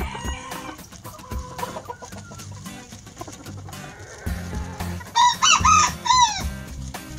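Chickens clucking quietly while feeding. About five seconds in, a rooster crows once loudly, a multi-syllable crow whose last note falls away.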